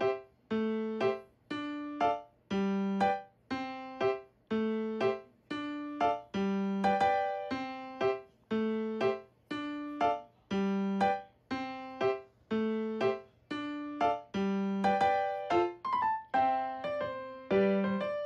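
Background piano music: a simple, light tune of single struck notes, each fading before the next.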